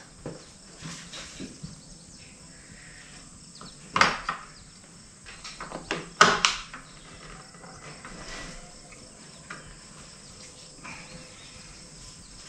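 Handling noises as flexible plastic conduit is worked into the junction boxes on the backs of solar panels: a few sharp clicks and knocks, the loudest about four seconds and six seconds in.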